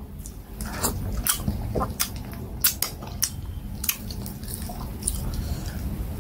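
Close-up mouth sounds of eating plantain fufu with black soup by hand: chewing with irregular sharp, wet smacks and clicks.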